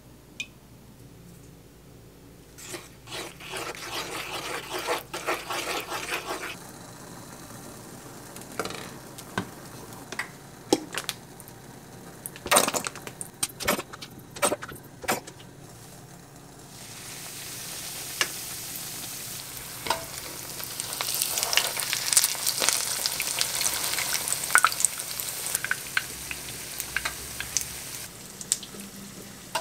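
A few seconds of stirring, then scattered clinks and knocks of cookware. From about halfway through, a steady sizzling comes from an oiled frying pan on the hob.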